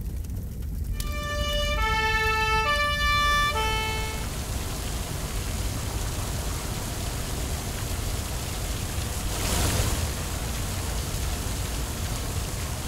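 Fire truck two-tone siren alternating high and low pitch for about three seconds, starting about a second in. It gives way to a steady hiss of water jetting from the truck's roof cannon, which swells briefly about ten seconds in. A low rumble runs underneath.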